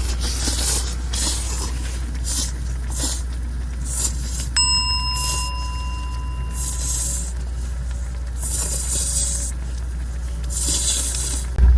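People slurping ramen noodles in irregular bursts over a steady low rumble. A single bell-like ding rings out a few seconds in and fades over about two seconds.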